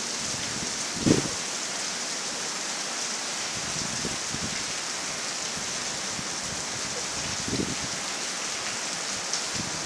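Steady rain falling, an even hiss, with two brief low thumps, about a second in and again at about seven and a half seconds.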